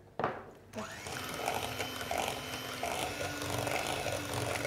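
A knock, then an electric hand mixer starts about a second in and runs steadily, its beaters whisking eggs, oil, ghee and sugar in a glass bowl.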